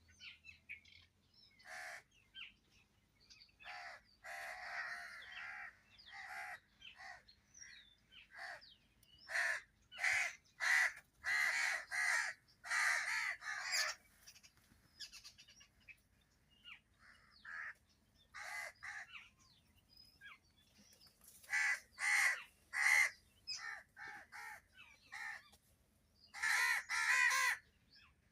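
Crows cawing: harsh calls repeated in bouts, often several in quick succession, with short pauses between the bouts.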